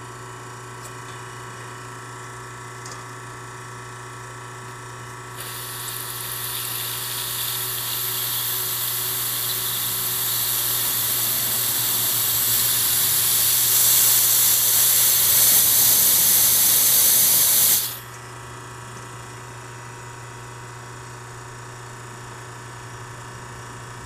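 Hiss of gas escaping from a loosened purge fitting on the high-side float chamber of a GE Monitor Top refrigerator: trapped non-condensable gas being bled off. The hiss starts about five seconds in, grows louder, and cuts off suddenly about three quarters of the way through, over a steady low hum.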